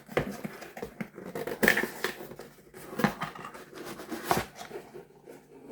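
Packaging and parts being handled by hand: rustling and scraping with several sharp clicks and knocks as a motorcycle accessory kit is unpacked.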